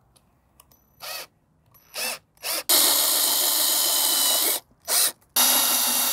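Cordless drill boring pilot holes through painter's tape into a boat's fibreglass gel coat. Three short trigger blips, then a steady run of about two seconds with a motor whine. After that comes a brief blip, and a steady run again near the end.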